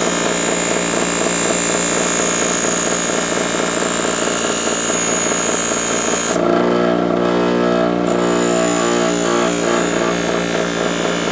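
Electric power tool motor running steadily with a high whine as a stainless steel wheel molding is worked against it; about six seconds in the whine drops away for a couple of seconds and then comes back.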